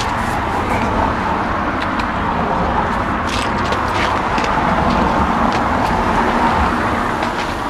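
Steady road traffic noise: cars running past on a rain-wet street, with a few faint ticks over it.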